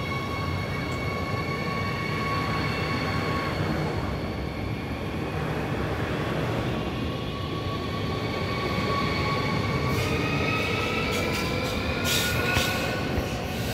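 Siemens Desiro HC double-deck electric multiple unit pulling out of a station: a rumble of wheels on rails with a steady electric whine from its traction equipment, which begins to rise in pitch as the train gathers speed. Near the end, a quick run of sharp wheel clicks.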